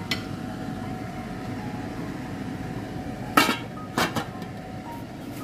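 A large aluminium pot of beef curry simmering with a steady bubbling noise. About three and a half seconds in, its aluminium lid clanks onto the rim, followed by a couple more metal knocks as it settles.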